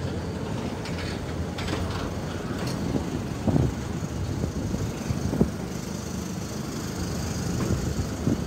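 Indian Pacific's stainless-steel passenger carriages rolling past on arrival: a steady rumble of wheels on the rails, with a couple of brief knocks partway through.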